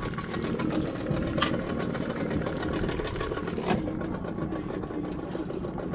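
Small boat's engine idling steadily, with two light knocks, one about a second and a half in and one near the four-second mark.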